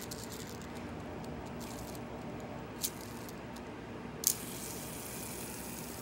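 Clicks and taps of a plastic fidget spinner handled on a hard tile floor, with a sharp click just after four seconds as it is flicked into a spin, then a faint whir as it spins.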